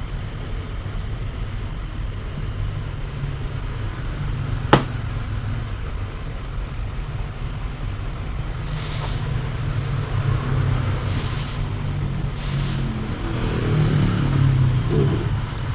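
Electrical tape being pulled off its roll in a few short rasps, over a steady low background rumble, with one sharp click about five seconds in.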